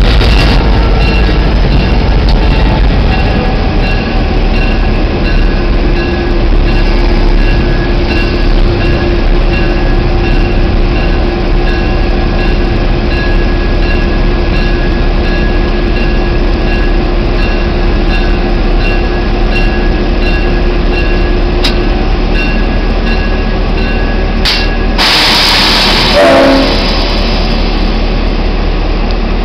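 Diesel locomotive No. 710's engine running steadily while the locomotive moves slowly, heard from its outside walkway, with a short loud hiss near the end.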